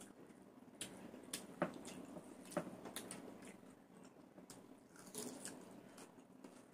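Faint sounds of people eating with their hands: chewing and wet mouth smacks, with scattered short clicks as fingers work the food on the plates.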